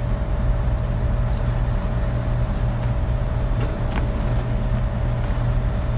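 Steady low hum with a faint steady tone over it, and two or three faint clicks around the middle.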